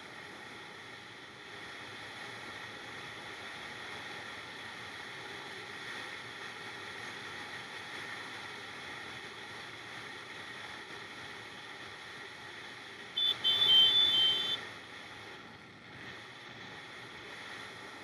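Small single-cylinder motorcycle engine, a Kawasaki Z125, running steadily while riding, with wind rushing over the microphone. About thirteen seconds in, a loud high-pitched blare lasts about a second and a half.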